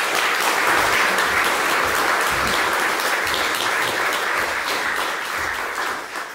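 An audience applauding, a dense, steady clapping that thins out and dies down near the end.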